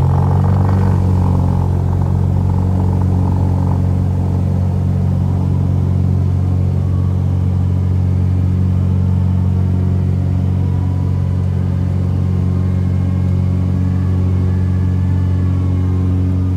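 Cessna 172's piston engine and propeller running at takeoff power during the takeoff roll, heard from inside the cabin as a steady, loud drone.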